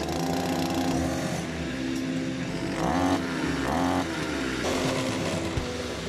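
A brush cutter's small petrol engine running after repair. It is revved briefly a couple of times around the middle, the pitch rising and falling.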